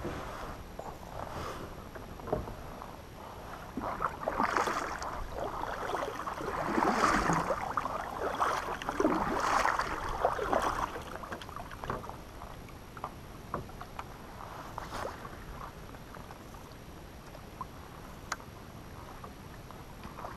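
Kayak paddle strokes, the blades dipping and splashing through the water in several swells through the middle, with a few sharp clicks and knocks against the boat.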